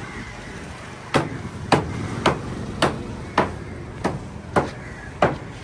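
A large knife chopping through fish on a wooden chopping block: sharp, evenly paced strikes, about two a second, starting about a second in.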